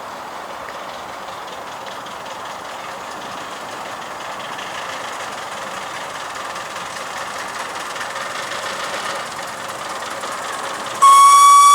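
A 7¼-inch gauge miniature train running along the track with a steady rolling noise that grows slightly louder. Near the end a loud locomotive whistle cuts in.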